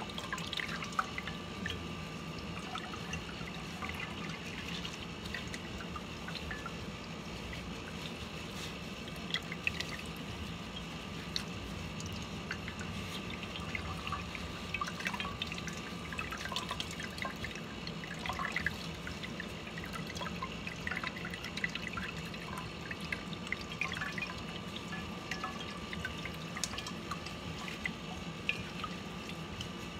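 Grape liquid dripping and trickling into a large pot as boiled grapes are worked by gloved hands, with many small scattered drips and ticks over a steady low hum.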